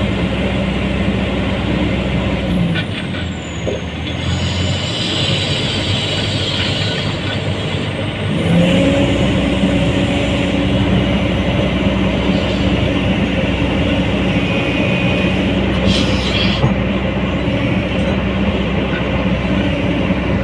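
Komatsu PC200-8 excavator's diesel engine running steadily. It eases off about three seconds in and picks up again, louder and with a changed pitch, about eight seconds in.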